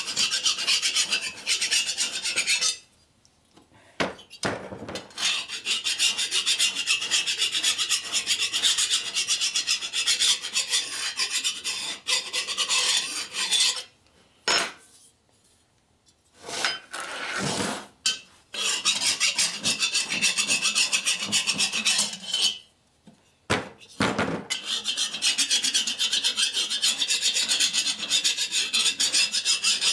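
Hand file rasping in rapid strokes over the cast-iron cylinder of a 1961 Harley-Davidson XLCH Sportster, deburring it before it is bored. The filing stops briefly about 3, 15 and 23 seconds in.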